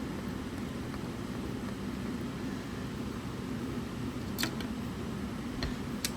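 A steady low hum with a few sharp clicks, the loudest near the end: small parts being handled.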